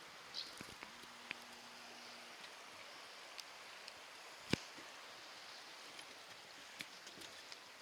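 Faint outdoor ambience: a steady hiss with scattered light clicks and one sharper knock about halfway through.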